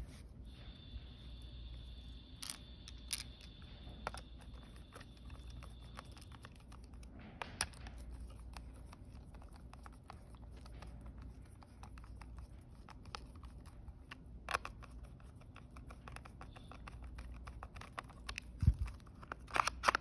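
Scattered light clicks and taps of a plastic scooter control console being handled and screwed back together with a hand screwdriver, with a faint thin high whine in the first few seconds. A low thump and a cluster of louder clicks come near the end.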